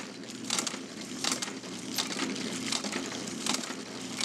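Motor-driven pecan cracking machine running with a steady hum, cracking pecans one after another with a sharp crack about every three-quarters of a second.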